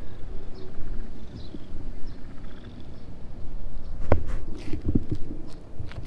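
Low wind rumble on the microphone with faint bird chirps, then from about four seconds in a run of knocks and rustles as the cat's fur rubs against the camera, the first knock the loudest.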